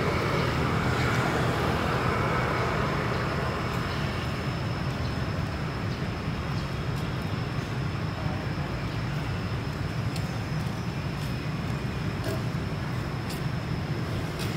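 Steady outdoor background rumble, strongest in the low end, with a faint steady high-pitched whine over it and a few light ticks; no clear animal calls.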